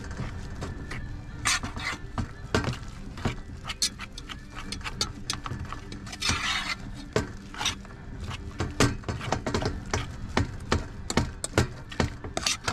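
A fork scraping and clicking against a metal pan in irregular strokes while mashing and mixing potato scone dough, with a longer scrape about six seconds in.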